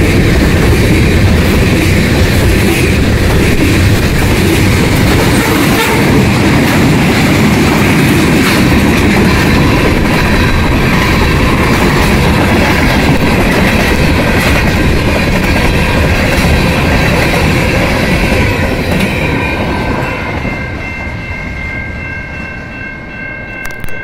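Freight train cars rolling past at a level crossing: a loud, steady rumble with wheels clacking over the rail joints. The noise fades over the last few seconds, leaving steady ringing tones from the crossing signal.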